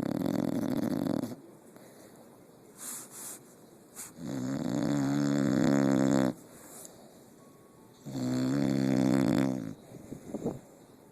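Snoring in a slow rhythm: three snores about four seconds apart. A short raspy one comes at the start, then two longer droning ones, the first of which swells louder toward its end. Small faint snuffles come between them.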